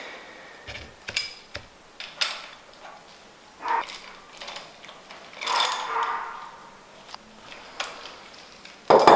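Hand tools clicking and clinking against metal fork parts as a 15 mm wrench works the rebound nut on a KYB SSS fork cartridge: scattered sharp clicks and a few short ringing clinks.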